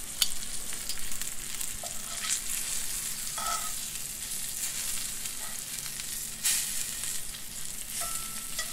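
Flour-dredged fish pieces frying in a skillet with a steady sizzle as they are turned over with metal tongs, which click against the pan a few times.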